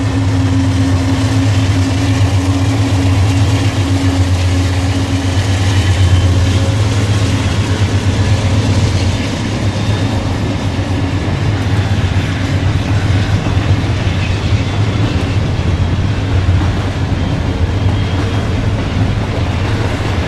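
Diesel-electric freight locomotives, a pair of GE Dash 9-40CWs, running under power with a steady deep engine rumble as they come past, followed by the intermodal cars rolling along the rails.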